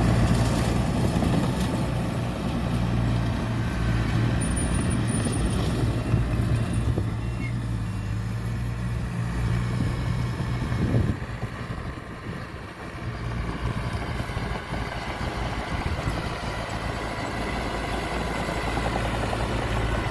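Heavy diesel engine of an earthmoving machine running with a steady low hum; it falls away about halfway through, then picks up again.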